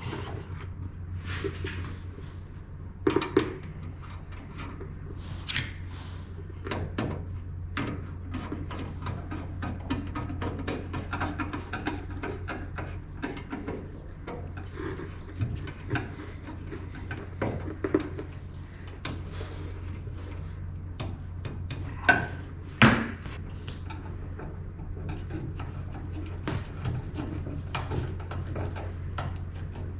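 Hand work on a meter socket and service wiring: scattered knocks, clicks and rubbing of tools, metal parts and heavy wire. A pair of louder knocks comes about three seconds in and another pair a little past the middle, over a steady low hum.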